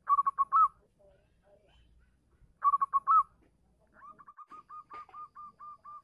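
Local zebra dove (perkutut) singing its cooing song, the call meant to draw a female. Two loud phrases of quick, clipped notes each end on a rising note, one at the start and one about three seconds in. A softer run of about ten short, even notes follows, about five a second.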